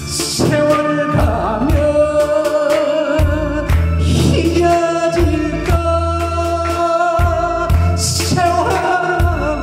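A man singing a Korean trot song into a microphone over instrumental accompaniment with bass and drums, his voice wavering with vibrato, and cymbal crashes about every four seconds.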